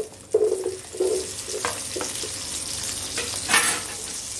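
Chopped onion pieces landing in hot oil in a frying pan and sizzling, with a series of soft knocks in the first couple of seconds as they drop in. The sizzle then runs on while a wooden spatula stirs them, with a louder burst of hiss about three and a half seconds in.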